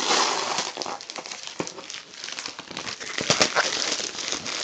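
Packaging crumpling and rustling as it is handled and pulled apart by hand, with scattered crackles and small clicks throughout.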